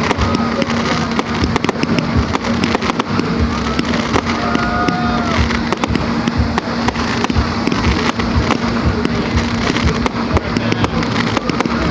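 Fireworks display: a continuous dense crackling of aerial shells and crackle effects bursting overhead, with many sharp cracks and bangs, over a steady low hum.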